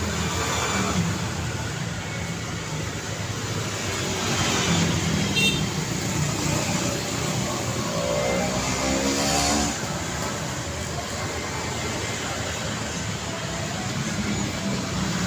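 Busy city street traffic: a steady wash of engines and tyres from passing vehicles. A brief high-pitched tone sounds about five seconds in, and one vehicle's engine climbs in pitch as it goes by between about eight and ten seconds in.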